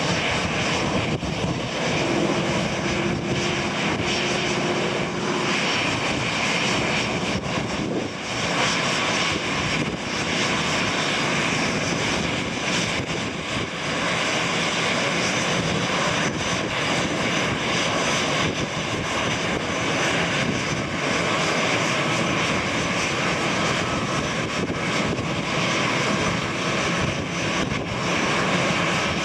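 Airbus A320's twin jet engines running at taxi power as the airliner rolls along the taxiway: a steady rush with a thin high whine over it.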